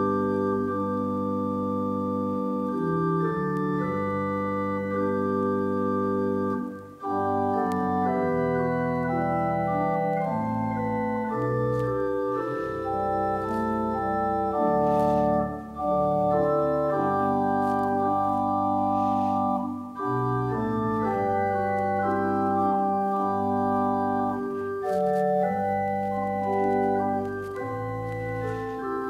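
Organ playing a slow piece of held chords that change every second or so, with a few brief breaks between phrases.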